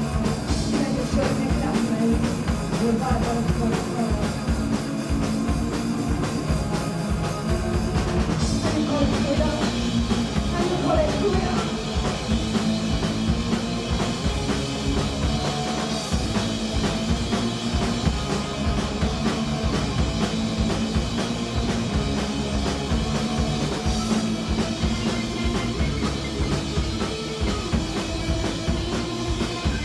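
Punk rock band playing live: a drum kit and guitars going steadily, loud and without a break.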